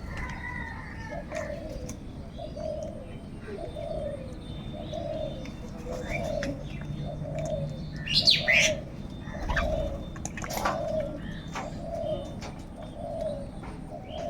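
Birds calling: a short, low cooing note repeated about once a second, with louder, harsher calls about eight and about ten and a half seconds in.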